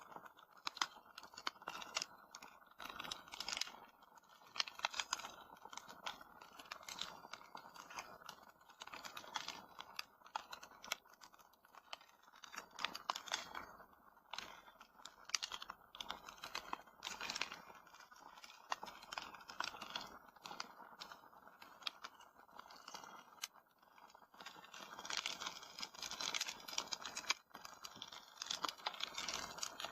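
Fire crackling in a fireplace: a constant irregular stream of small pops and snaps over a soft hiss.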